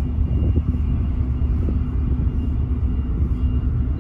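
Steady low rumble with a constant hum from the running engines of the Irish Ferries ship Ulysses.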